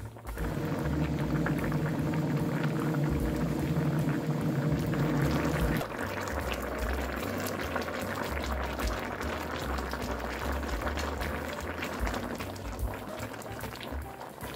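Chicken stew boiling hard in a stainless steel pan, a steady bubbling with many small pops. A low steady hum sounds over it for the first six seconds or so, then stops.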